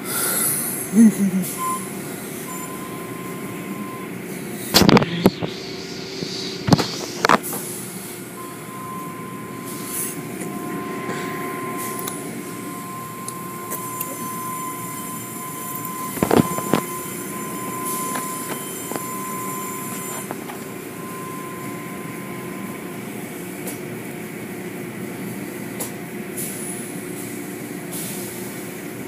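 Automatic tunnel car wash running: steady machinery noise with a faint whine, as the cloth strips and brushes sweep over the car. The brushes slap hard against the car several times, about five and seven seconds in and again around sixteen seconds.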